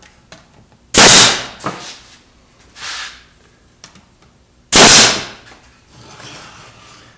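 A Bostitch pneumatic brad nailer fires twice, nearly four seconds apart, driving brads into glued pine pieces. Each shot is a sharp bang that trails off briefly.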